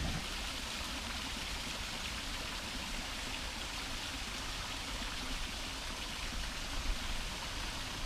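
Tillingbourne Waterfall, a tall multi-tier woodland cascade, rushing steadily as it falls into a pool.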